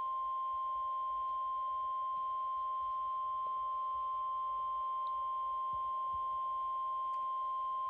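NOAA Weather Radio 1050 Hz warning alarm tone: one steady, unbroken tone at an even level, sounded as a routine test of the station's public warning system.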